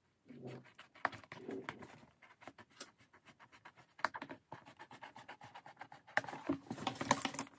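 Scissors cutting through a sheet of white magnetic foil: an irregular string of small clicks and scrapes, then a denser rustle and crackle of the stiff sheet near the end as the cut piece is pulled apart.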